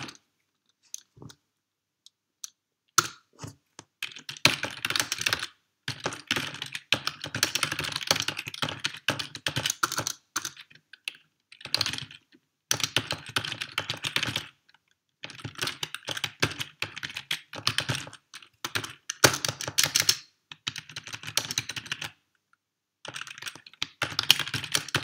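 Computer keyboard typing: a few scattered keystrokes at first, then rapid runs of keystrokes broken by pauses of a second or two.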